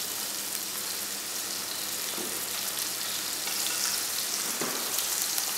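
A floured white fish fillet sizzling steadily in hot fat in a frying pan, the heat turned down to let it cook through slowly. Two faint clicks break in, about two seconds in and near the end.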